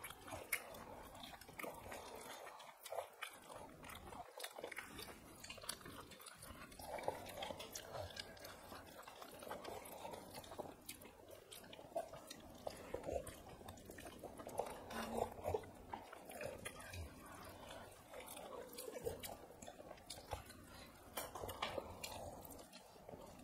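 People chewing rice and chicken curry eaten by hand: wet mouth sounds and bites, with many small clicks of fingers and food on steel plates.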